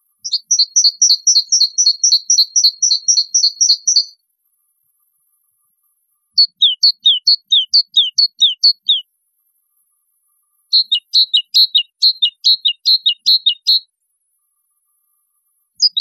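A small songbird chirping in three phrases of rapid high notes, each lasting about three to four seconds with pauses of about two seconds between them. The middle phrase is made of falling notes, and a fourth phrase starts near the end.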